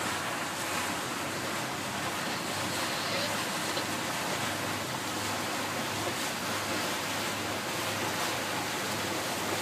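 Steady rush of water and a low engine hum heard inside a motorboat's enclosed cabin while it is under way.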